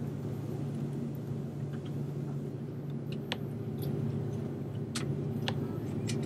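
Steady cabin hum of a jet airliner rolling along the runway: engine and airflow noise heard from inside the cabin, with a few faint clicks scattered through it.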